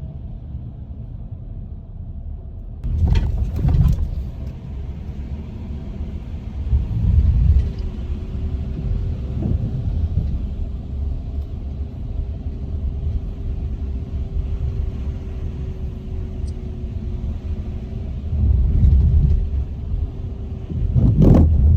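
Car being driven: a steady low road rumble with a faint steady hum. There are louder rushing swells about three seconds in and again near the end.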